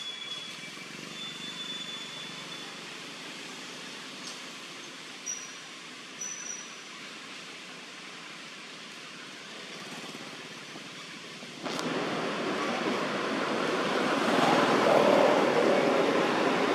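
Steady rushing outdoor background noise with a few brief high chirps in the first seven seconds. About twelve seconds in, the noise jumps suddenly louder and keeps building.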